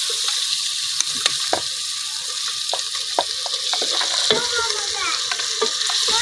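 Food sizzling in hot oil in a cooking pot while being stirred, with a spoon clicking and scraping against the pot at irregular moments.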